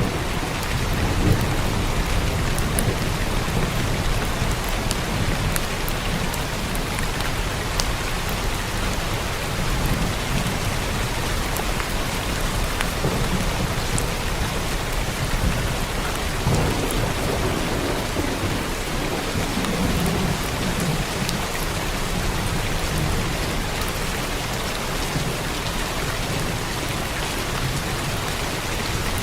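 Steady heavy rain drumming on a roof, with low rolling thunder swelling and fading several times.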